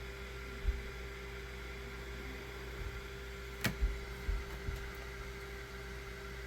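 Steady electrical hum with several fixed tones, broken by a few soft low thumps and one sharp click a little past the middle.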